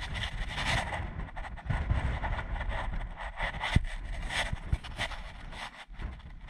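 Wind buffeting a body-worn camera's microphone while a climber scrambles over boulders, with scuffing and rustling against the rock. A sharp knock comes a little past the middle.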